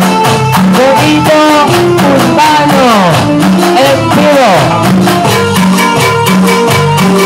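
Latin dance band music with no singing: a lead melody that slides up and down in pitch over a pulsing bass line and a fast, steady shaker-like percussion beat.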